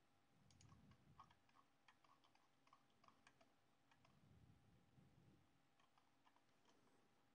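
Near silence: faint room tone with a steady faint hum and scattered soft clicks.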